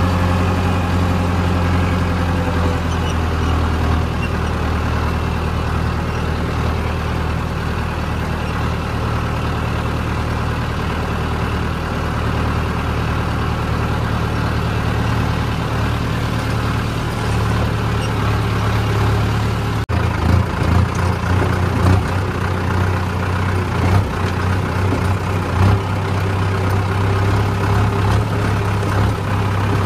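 Mahindra 265 DI tractor's three-cylinder diesel engine running steadily as the tractor is driven. About twenty seconds in there is a brief break, after which the engine note goes uneven.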